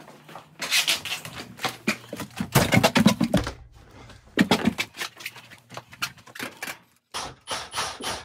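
Irregular scraping, rubbing and knocking of hand work on a wall, in uneven loud spells, with a brief dropout about seven seconds in.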